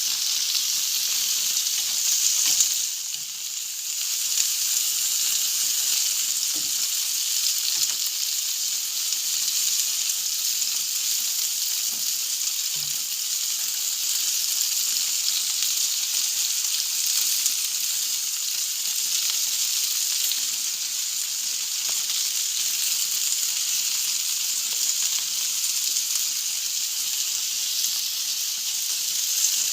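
Food sizzling on a Balkan-style barbecue grill (roštilj): a steady, dense hiss with scattered small crackles, dipping briefly about three seconds in.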